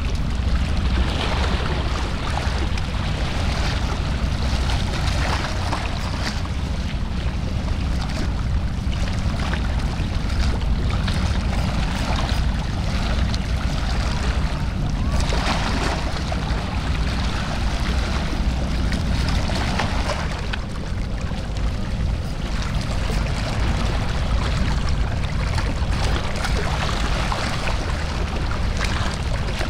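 Seaside ambience: a steady rushing noise of wind on the microphone and sea water washing against the rocks of a breakwater, with swells of hiss coming and going.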